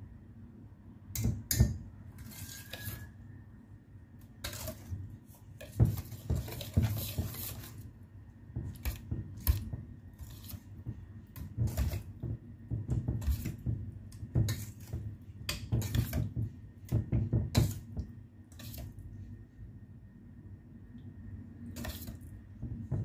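Wire balloon whisk scraping and clinking against a stainless steel mixing bowl as it stirs thick chocolate brownie batter, in irregular strokes.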